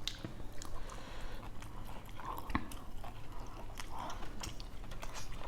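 People chewing and biting food close to the microphone: scattered small clicks and wet mouth noises.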